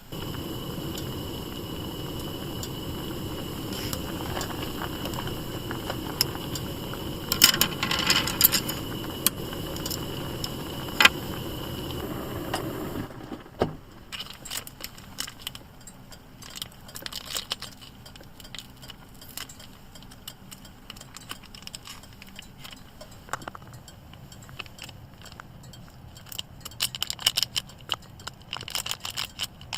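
Camp cooking: a steady low rushing noise that stops abruptly about thirteen seconds in, with metal clinks of utensils against cookware. Scattered light clicks and taps follow.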